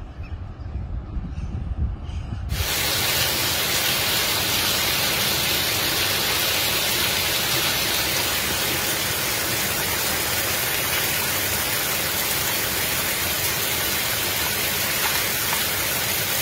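A low rumble at first, then about two and a half seconds in the dense, steady hiss of heavy hail falling on garden foliage and a gravel path.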